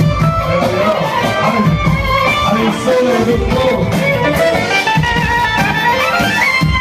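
Live band playing Arabic dance music: an instrumental passage with a keyboard melody over drums, its line climbing in pitch near the end.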